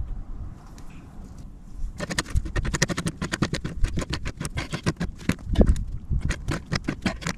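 Brass gas fitting being tightened onto a black iron pipe elbow with a pliers wrench: a rapid run of sharp metal clicks and scrapes that starts about two seconds in.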